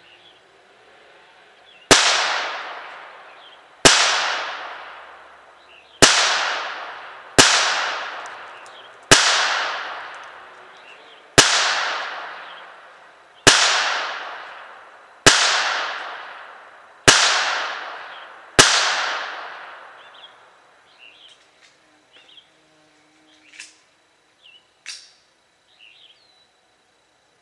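Ruger Mark III .22 LR pistol firing ten single shots about two seconds apart, each ringing out in a long echo. Two faint clicks follow near the end.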